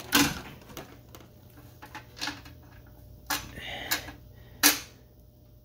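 A few sharp metallic clicks and knocks from hand-fitting a bell housing bolt as the transmission is offered up to the engine, the loudest just after the start and near the end.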